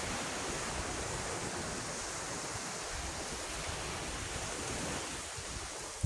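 Steady wash of sea surf.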